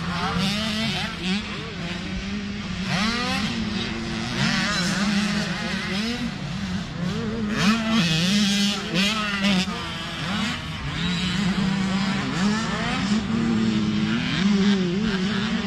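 Motocross dirt bike engines revving hard and backing off as the bikes ride the track, their pitch rising and falling over and over, with more than one bike heard at once.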